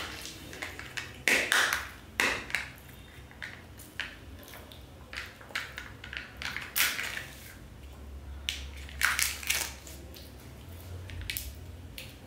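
Kinder Joy eggs' foil-plastic wrappers crinkling and tearing as they are unwrapped by hand, in irregular crackly bursts; the loudest come about a second and a half in and again around nine seconds.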